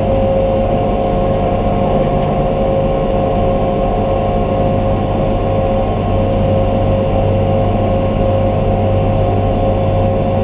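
Passenger boat's engine running steadily under way. A constant low drone is heard with a steady whine above it.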